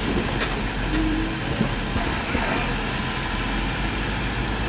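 Jeep Wrangler's engine running steadily at low revs as it crawls slowly up a rock ledge, with a few light knocks.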